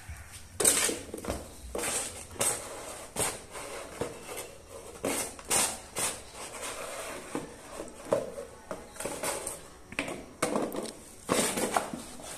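German Shepherd puppy playing with a small cardboard juice carton on a concrete floor: irregular taps, knocks and scrapes as the carton is nosed and pushed about, many times over.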